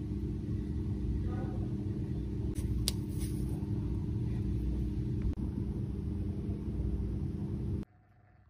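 Steady low rumble with a constant hum, cutting off suddenly near the end; a single sharp click about three seconds in.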